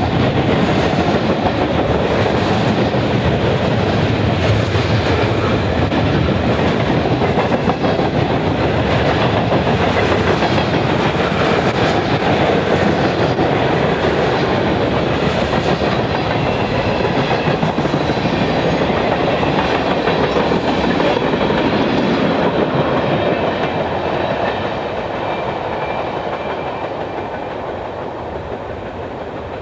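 Manifest freight train cars rolling past at close range: a steady rumble and clatter of steel wheels on the rails. From about 23 seconds in the sound grows gradually quieter as the cars roll away.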